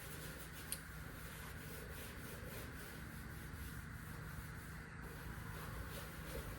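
Faint rubbing of an oil-soaked cloth rag over the truck's painted sheet-metal body, a soft steady scrubbing with one small click under a second in.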